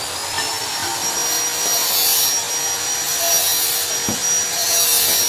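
Gas welding torch hissing steadily as it welds a steel motorcycle exhaust, with a thin high whistle throughout. A single tap comes about four seconds in.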